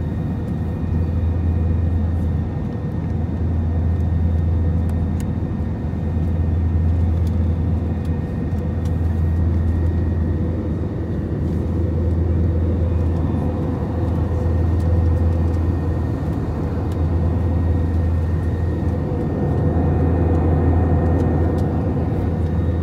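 Cabin noise of an Airbus A321 in flight: a steady roar of airflow and its IAE V2500 engines. A strong low hum in it swells and eases every couple of seconds.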